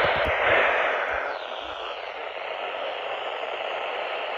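Steady static hiss from a weather radio receiver between spoken phrases of a warning broadcast. It is louder for about the first second and a half, then settles to an even hiss.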